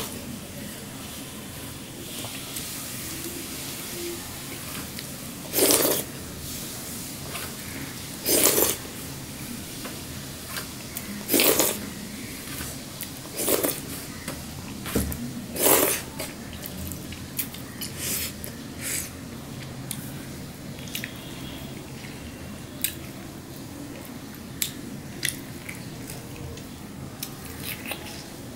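Wet slurping and sucking of food being licked off fingers, five loud slurps a few seconds apart in the first half, then smaller lip smacks and clicks.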